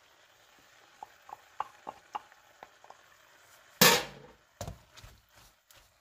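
Wooden spatula tapping and scraping against a frying pan while stirring noodles and sauce: a run of light taps, then one loud knock just before four seconds in, followed by a few more knocks.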